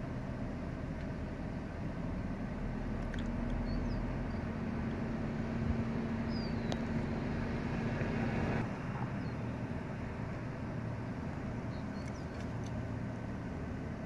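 Steady low rumble of a motor vehicle engine running, with a steady hum that cuts off suddenly about eight and a half seconds in. A few faint high chirps now and then.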